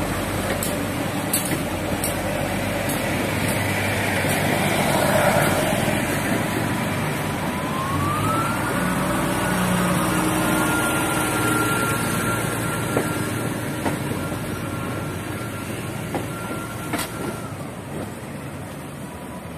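KRDI diesel multiple unit rolling past at close range, a steady rumble of wheels and running gear, with regular clicks of the wheels over rail joints in the first few seconds. About eight seconds in a thin high whine rises in pitch and holds steady, stopping shortly before the end.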